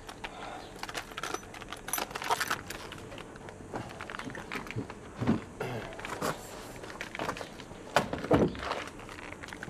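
Plastic snack wrapper crinkling and rustling in a hand, with scattered small clicks and two short low muffled sounds about five and eight seconds in.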